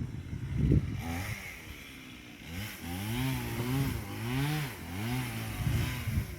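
A small engine revving up and down several times, its pitch rising and falling in smooth waves.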